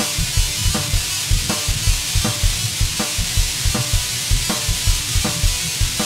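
Intro music with a driving drum beat: quick kick-drum thumps and sharper snare-like cracks about every three-quarters of a second, over a steady hiss.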